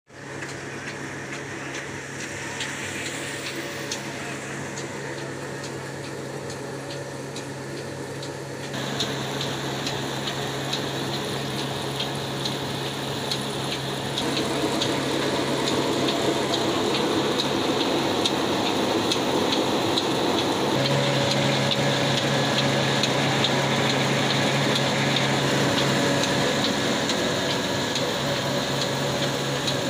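Old black stationary diesel engine running, driving a wheat grinding mill through flat belts: a steady low hum with the noise of the belt-driven machinery, growing louder in steps.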